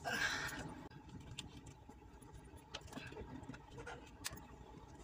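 Long-handled socket wrench working a cylinder head bolt on the crane's engine: a short rasping noise in the first second, then scattered sharp metallic clicks and clinks of the tool.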